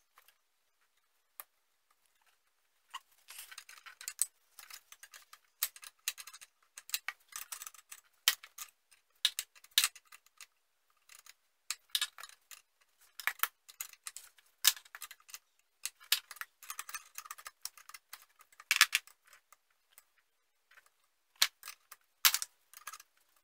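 Irregular light metallic clicks and short scrapes: the brake-line fittings being threaded into a master cylinder and tightened down with a tool.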